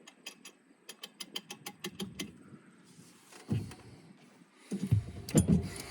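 Keys on a keychain jangling: a quick, uneven run of light metallic clicks, about five a second, for the first two seconds, then a few dull handling bumps near the end.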